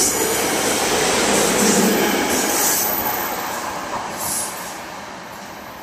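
SEPTA Silverliner IV electric multiple-unit train cars rolling along the rails past the platform, a steady rumble of wheels on track that fades as the train pulls away.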